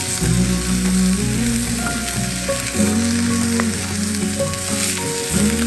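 A block of beef sizzling steadily as it sears in a hot cast-iron skillet over a campfire, under background music.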